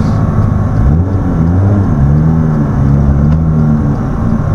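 Boosted 2JZ inline-six engine of a Lexus SC300 running under way, heard from inside the car; its note rises and wavers briefly about a second in, then settles into a steady drone.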